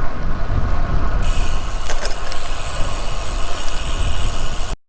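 Wind rumbling on the microphone of a bicycle-mounted camera while riding on a road, with road traffic hiss rising about a second in. The sound cuts out abruptly near the end.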